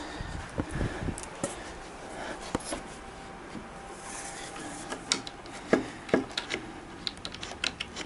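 Knocks and light clicks as the particleboard panels and metal brackets of a Yamaha L-85 keyboard stand are handled and fitted together. A few dull knocks come in the first second, and the clicks come quicker near the end.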